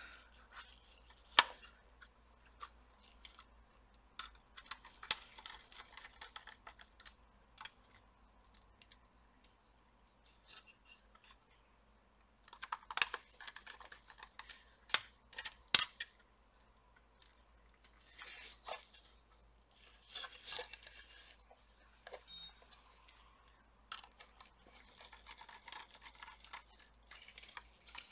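Small screws being driven into a laptop SSD's metal mounting bracket with a hand screwdriver: short spells of scratchy turning and scraping, with a few sharp clicks of metal on metal.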